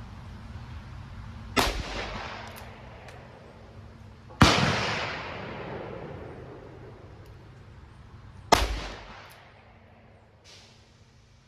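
Three shots from an 1875 Remington single-action revolver, about three to four seconds apart, each sharp crack followed by a long fading echo. A fainter crack follows near the end.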